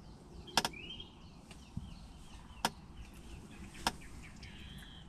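Three sharp clicks of fishing tackle being handled at the landing net, spaced one to two seconds apart, with a bird's short rising chirps in the background.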